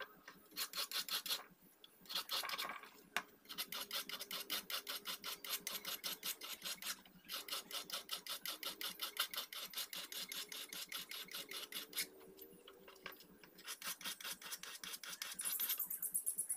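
Hand file scraping back and forth across the steel of an old machete blade, in fast, even strokes several a second, with a few short pauses.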